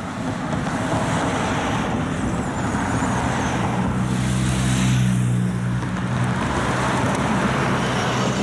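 Motorcycle passing close by, its engine note rising to its loudest about halfway through and then fading, over steady road and traffic noise from other passing vehicles.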